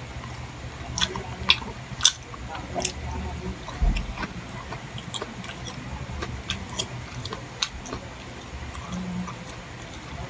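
Close-miked chewing and mouth sounds of someone eating chicken liver and gizzard adobo, with scattered sharp clicks and smacks. A low steady hum runs underneath.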